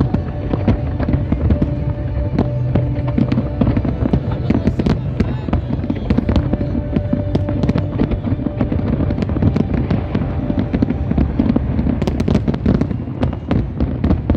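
Fireworks display firing a dense barrage: many shells bursting at once in rapid, overlapping bangs and crackles, with a cluster of sharper cracks near the end.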